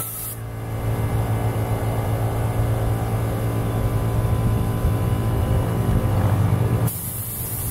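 A motor running with a steady, engine-like hum that grows louder about half a second in and cuts off abruptly near the end.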